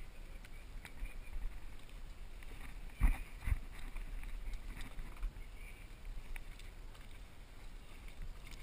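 Sportfishing boat lying slow beside a hooked fish: a steady low rumble with water and wind noise along the hull. Two sharp knocks come about three seconds in, half a second apart.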